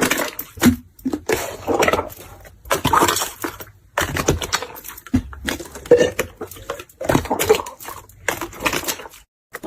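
Clear slime being squished and pressed by hand, giving irregular wet squishes and clicky pops in uneven bursts.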